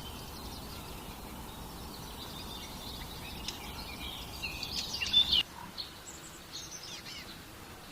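Wild birds chirping and calling in short high notes over a steady background hiss, busiest and loudest about four to five seconds in; the background changes abruptly just after that, followed by sparser chirps.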